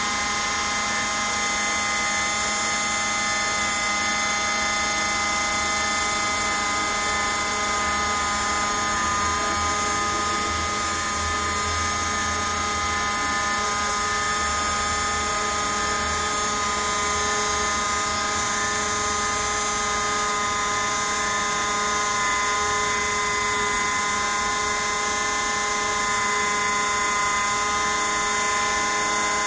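CNC router spindle running with a steady high whine as its bit mills a relief into a foam block.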